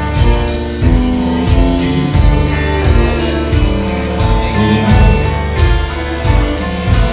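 A live band playing a song with drum kit, electric guitars, violin and cello, the drums hitting about once a second under held notes.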